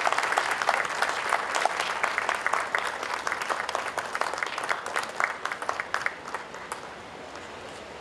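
Audience applauding after a speech, the clapping thinning out and dying away about seven seconds in.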